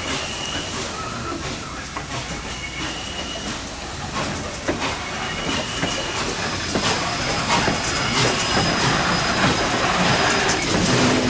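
Passenger train rolling along the track, heard from aboard: a steady rumble with clicks from the rail joints and short, high wheel squeals. It grows louder in the second half, where one longer, higher squeal is held for a few seconds.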